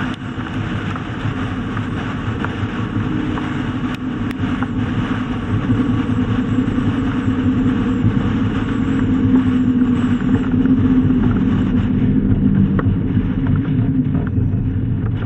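Steady rush of wind over a camera microphone mounted on a moving pickup truck's roof, mixed with the truck's road and engine noise. It grows a little louder about six seconds in.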